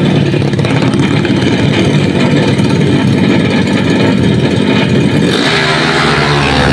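Two drag-racing motorcycles revving on the start line, then launching hard off the line about five seconds in.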